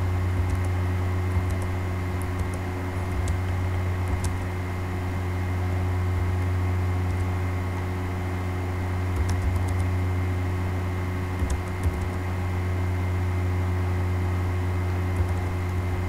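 Steady low electrical hum with a few faint steady tones over it, and scattered computer keyboard key clicks, including a short run of clicks about nine seconds in.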